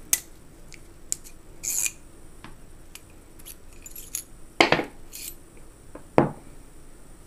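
Small steel parts of an S&W M&P15-22 bolt clicking and clinking as it is taken apart by hand, with scattered light clicks and two louder knocks about four and a half and six seconds in.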